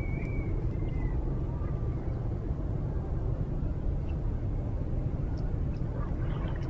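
Outdoor ambience by a pond: a steady low rumble, with faint high chirps in the first second.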